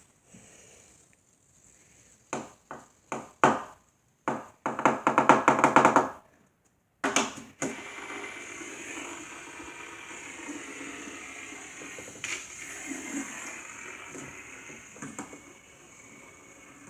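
Plastic packaging being handled and pried open to free a fidget spinner: a few sharp clicks, then a burst of rapid crackling about five seconds in, followed by a steady lower noise.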